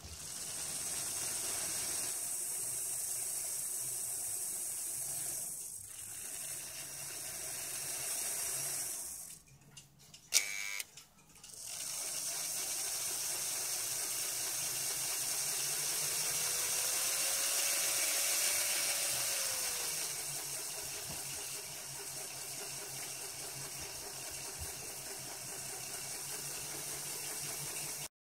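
Märklin 3046 BR 150 X model steam locomotive running on a roller test stand for its final test after cleaning and oiling: a steady whir of its motor and gearing with the wheels spinning on the rollers. About ten seconds in it slows almost to a stop, with one sharp click, then runs up again.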